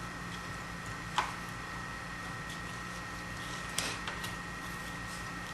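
Sharp clicks from the parts of an adaptive pistol-mount rig being handled and fitted: one about a second in, another near four seconds followed by a few lighter ticks. A steady low hum with a faint high whine runs underneath.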